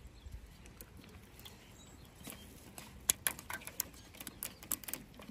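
Rubber band being stretched and snapped onto a water balloon tightly bound with other bands: a scatter of light snaps and taps, sparse at first and more frequent from about two seconds in.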